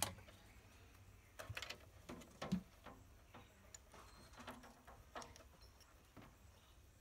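Scattered light clicks and taps of small tools and wires being handled while wiring and soldering a circuit board, some with a brief ring, over a faint steady low hum.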